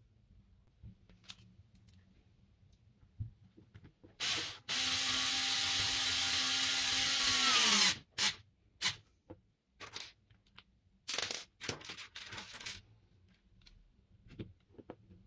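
A small electric power tool's motor runs for about three seconds at a steady pitch, then slows and stops with its pitch falling. Sharp clicks and knocks of parts being handled come before and after it.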